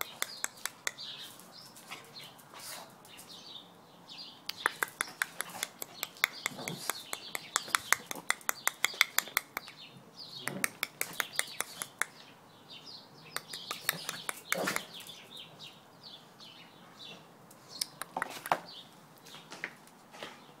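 Small dog's claws clicking rapidly on concrete in quick runs as it spins and dances, excited for food, with high-pitched whines and a few louder yelps.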